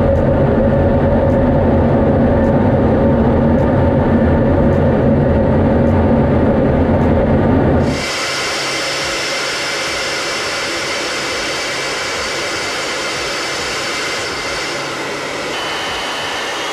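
Fighter jet engine noise heard from the cockpit: a loud, steady low rumble with a hum. About eight seconds in it cuts abruptly to a thinner, hissier jet whine.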